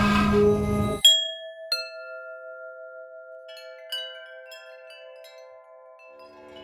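A dense, rough metallic drone cuts off about a second in. Then a resonant metal object is struck twice, ringing out in clear bell-like tones, followed by a few lighter pings while the ringing slowly dies away. Near the end a new low metallic hum begins.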